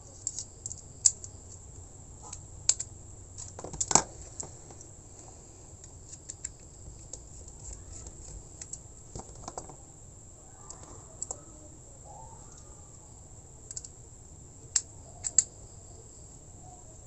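Scattered light clicks and taps of plastic two-way wall switches and their screw terminals being handled while a wire is fitted and screwed in. The loudest knocks come about four seconds in, with a close pair near the end.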